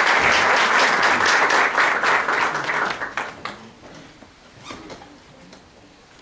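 Audience applauding; the applause dies away about three seconds in, with a few last scattered claps before it stops.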